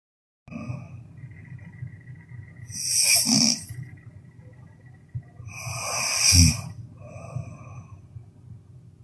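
A sleeping person snoring loudly: two snores about three seconds apart, each a rising hiss that ends in a low rattle, with quieter breathing between. The first half second is dead silence.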